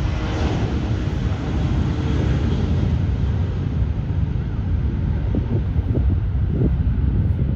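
Jet airliner engines rumbling loudly as the aircraft passes, with a thin whine in the first second that fades away.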